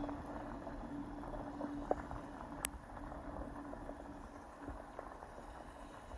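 A steam locomotive working hard under heavy exhaust in the distance, heard faint and muffled, with a steady low rumble. A faint steady tone lasts the first couple of seconds, and a sharp click comes about halfway through.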